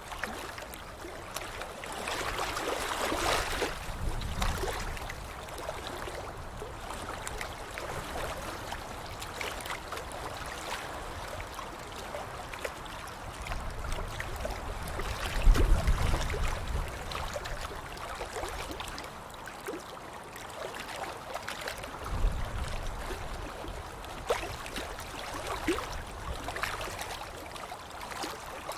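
Water splashing and sloshing, a steady wash broken by louder splashes about three seconds in, around the middle (the loudest, with a deep low thump) and a few seconds later.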